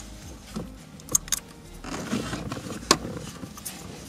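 Plastic wiring-harness connectors and cables being handled and rattled, with a few sharp clicks, the loudest about three seconds in, over a rustling of wires.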